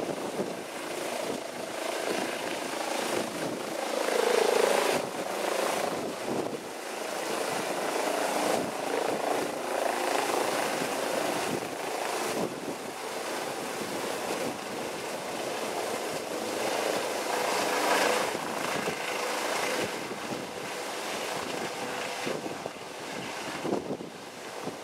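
Eurocopter EC135 air-ambulance helicopter flying overhead and climbing away, its twin turbines and rotor blades making a steady, fluttering noise throughout.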